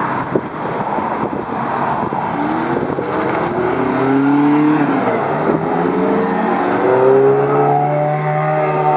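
Ferrari V8 sports cars accelerating away past the camera, the engine note climbing in repeated rising sweeps from about two seconds in.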